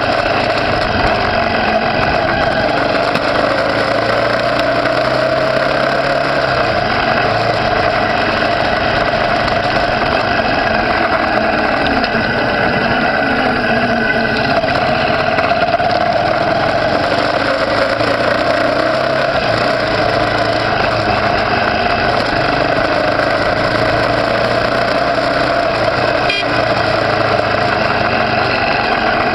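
Motorcycle engine running steadily while riding slowly through town traffic, heard close up from the bike itself.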